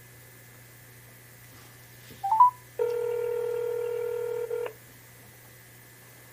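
Telephone conference-line tones: a short rising three-step beep about two seconds in, followed by a steady electronic tone lasting about two seconds, and a click at the end. A low steady hum lies underneath.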